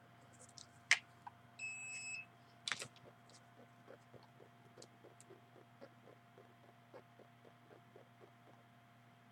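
A small electronic device gives one short high beep of about half a second, between two sharp handling clicks, followed by faint rapid ticking about four times a second over a steady low hum.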